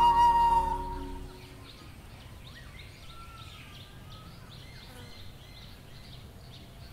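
A held flute note fades out in the first second, leaving faint outdoor ambience with small birds chirping now and then.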